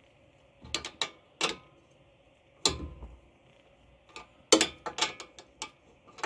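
Ratcheting wrench clicking as it runs down the top nut of a sway bar end link: a few clicks early, a louder one near three seconds, then a quicker run of clicks after four seconds.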